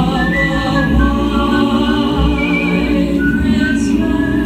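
Music with choral singing: many voices holding long, layered chords.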